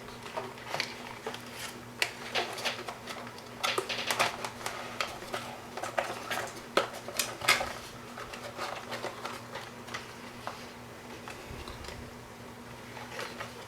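Irregular light clicks and taps from handling small parts and wires by hand, over a faint steady low hum.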